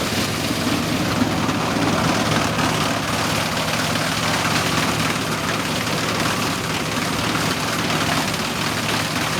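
1971 Dronningborg 900 combine harvester running steadily, its Perkins 4.154 four-cylinder diesel engine holding an even speed.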